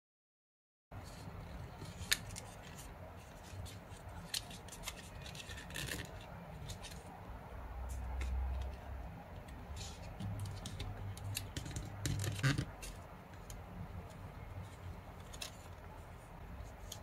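Origami paper being folded and creased by hand: rustling and scraping with short sharp crackles as the paper is pressed flat and slid, the loudest about twelve seconds in.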